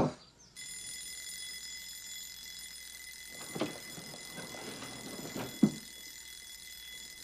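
A steady, high-pitched alarm tone with a stack of overtones starts abruptly about half a second in and holds unbroken, with two brief faint sounds in the middle.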